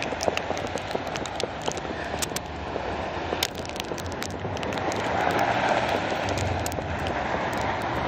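Muffled street noise of cars on the snowy, slushy road, heard through a camera wrapped in tape, with frequent small crinkling clicks from the tape over the microphone. The noise swells a little about five seconds in.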